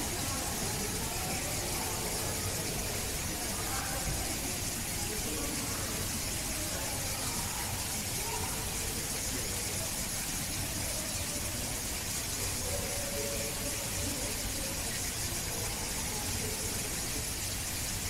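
Steady background hiss with faint, indistinct voices mixed in, as of distant talk.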